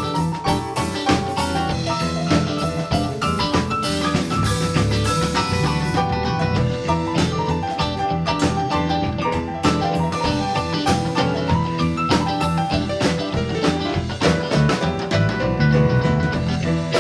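Live band playing an instrumental passage: an electronic keyboard plays busy runs of short, bright notes over a drum kit.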